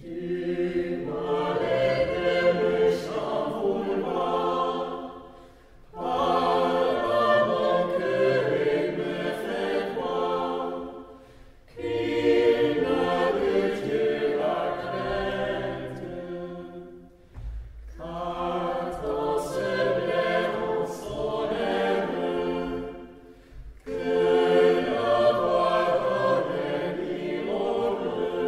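Small mixed-voice chamber choir singing a cappella, in five phrases of about five to six seconds each with brief breaks between them.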